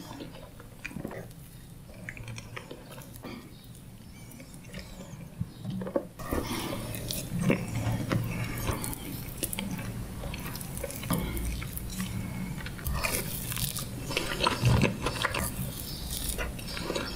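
Close-miked mouth sounds of eating soft chocolate fondant from a wooden spoon: wet chewing and smacking with small clicks. It is quieter at first and gets suddenly louder about six seconds in.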